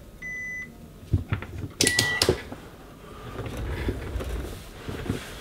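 Two short high electronic beeps, the second about two seconds in with a sharp clatter over it, among scattered clicks and knocks, then low shuffling noise.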